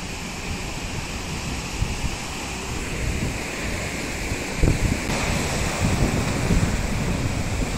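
Wind buffeting a phone's microphone, an uneven low rumble over a steady outdoor rushing noise.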